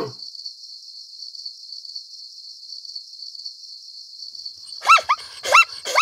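A steady, pulsing high insect-like buzz, then a little before the end a quick run of short, high yelping barks from an animal, each rising and falling in pitch, about three or four a second.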